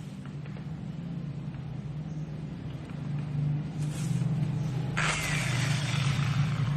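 Handheld electric power tool for sanding or polishing, running with a steady hum that grows louder about three seconds in. About five seconds in, a loud hiss joins it.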